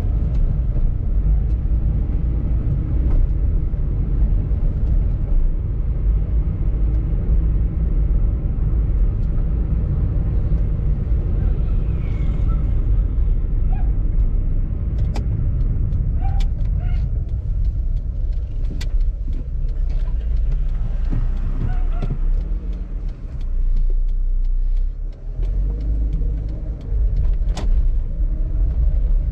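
Steady low rumble of a car driving along a street, with a few sharp clicks and short chirps in the second half. The rumble eases for a few seconds near the end, then comes back.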